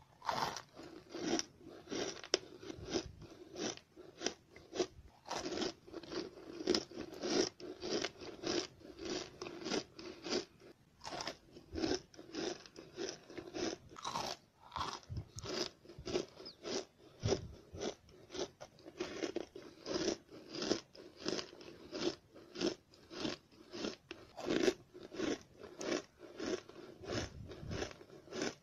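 Close-miked crunching and chewing of chalky white edibles such as pressed cornstarch, chalk or clay, with a steady run of bites and crunches at about two a second.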